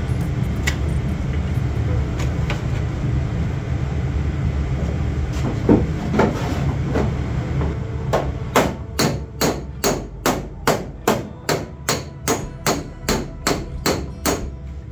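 A hammer striking the steel rear quarter panel of a Nissan Bluebird body shell: a few scattered knocks, then from about halfway in an even run of sharp taps, two to three a second, each ringing briefly. A steady low hum runs underneath.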